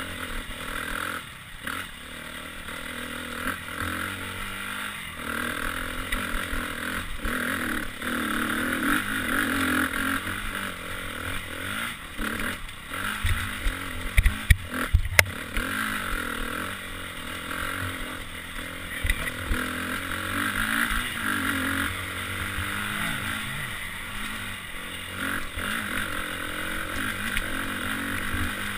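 Dirt bike engine running and revving up and down with the throttle over rocky single track, heard from a helmet camera, with rattling and clatter from the bike over the rocks. A few sharp loud knocks come close together about halfway through.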